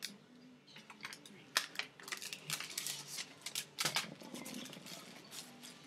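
Tissue paper rustling and crinkling in irregular crackles as a gift-wrapped ornament is unwrapped by hand, busiest in the first four seconds and thinning out after.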